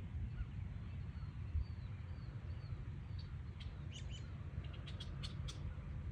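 Wild birds calling: faint high chirps early on, then a quick run of short, sharp notes in the second half, over a steady low rumble.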